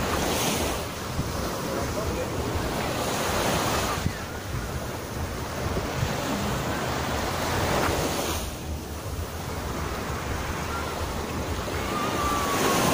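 Sea waves washing onto a sandy beach, a steady rush that swells and falls back every few seconds, with wind buffeting the microphone.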